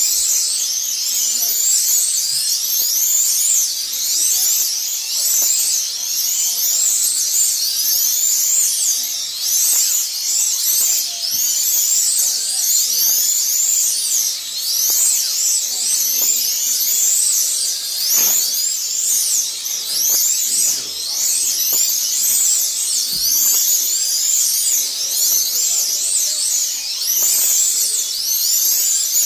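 Several 1/32-scale Eurosport slot cars racing. Their small electric motors whine high and overlap, each whine rising and falling over and over as the cars accelerate down the straights and brake into the corners.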